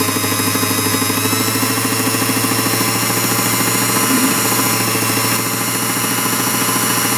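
Small belt-driven clockmaker's lathe running with a steady rhythmic hum while a 1.1 mm drill bit in a hand-held pin vise is fed into the end of a spinning clock-wheel arbor, drilling it out to take a new pivot.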